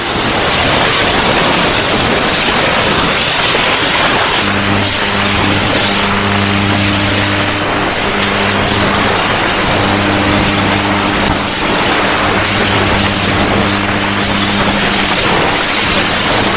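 Shortwave AM reception with no programme audio: steady hiss and static. From about four seconds in, a low steady hum with overtones drops in and out.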